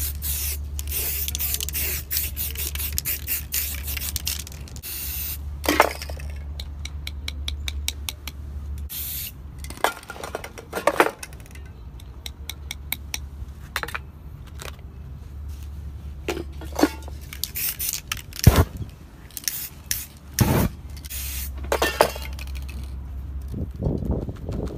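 Aerosol spray paint cans hissing in many short bursts, with scraping and several sharp knocks and clinks from the painting work.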